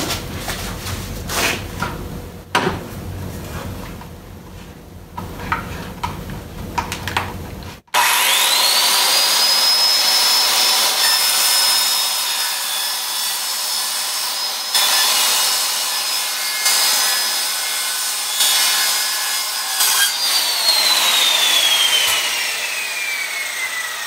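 A few light clicks and knocks, then about a third of the way in a corded circular saw starts with a quickly rising whine. It runs at a steady high pitch while its blade, set 1/8 inch deep, cuts a shallow groove in plywood along a clamped guide. Near the end it is switched off and the whine falls steadily as the blade winds down.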